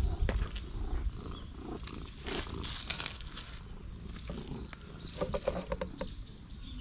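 A hand stroking a cat's fur close to the camera: irregular brushing and rustling, with bumps from the camera being handled.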